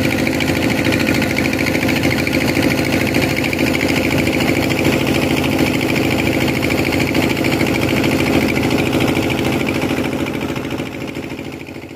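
A fishing boat's engine running steadily under way, with a fast, even firing pulse. It fades out over the last couple of seconds.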